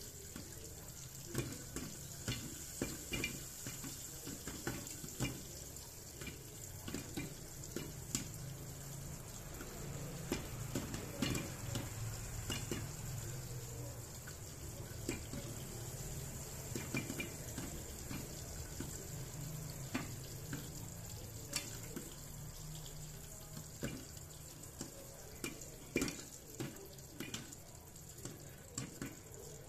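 Popcorn kernels popping in a lidded electric hot pot: scattered sharp pops at irregular intervals over a steady hiss, as the pot fills with popped corn.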